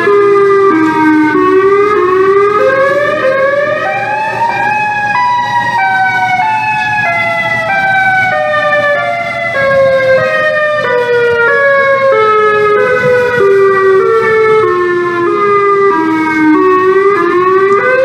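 Several outdoor tornado warning sirens wailing together at slightly different pitches. Their pitch climbs about four seconds in, falls slowly through the middle and climbs again near the end, sounding a tornado warning.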